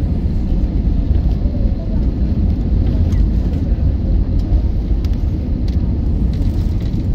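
Airliner cabin noise: a loud, steady low rumble with no rise or fall, and a few faint clicks.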